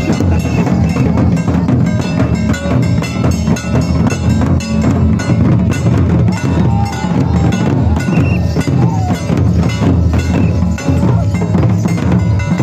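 Traditional Santhali drumming: large hand-beaten barrel drums played in a fast, steady rhythm for dancing.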